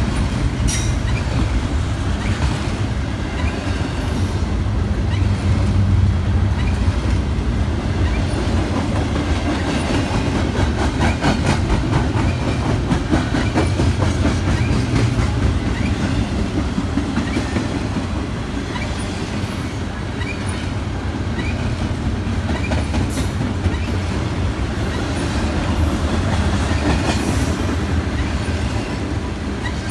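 BNSF double-stack intermodal container train rolling past close by: a steady rumble of wheels and cars, with rapid clicking of wheels over the rail and a few short squeaks.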